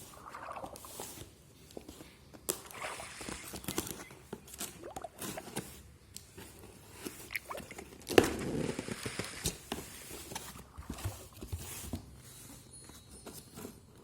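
Packaging being handled and opened: irregular rustling and crinkling with scattered clicks and taps, and one louder sharp noise about eight seconds in.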